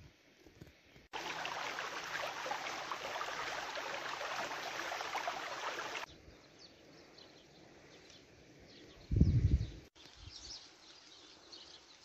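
Outdoor ambience in short spliced pieces: about five seconds of dense steady hiss, then a quiet stretch with faint high bird chirps and a brief low rumble a little after the middle.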